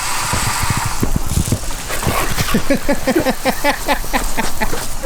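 A dog barking and yipping rapidly, several short falling barks a second, after a hiss in the first second.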